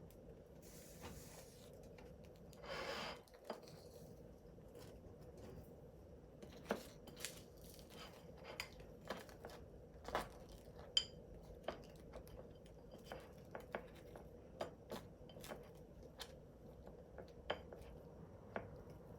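Utensils clinking and tapping against dishes: a string of light, scattered knocks, one of them a ringing clink about halfway through. A short rushing noise comes about three seconds in.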